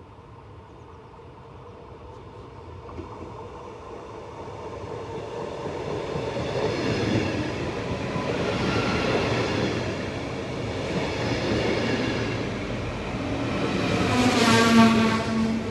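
NS yellow-and-blue double-deck electric train approaching and then running past close by, its wheels rolling over the rails, growing steadily louder. Near the end it is loudest, and a steady low tone joins in.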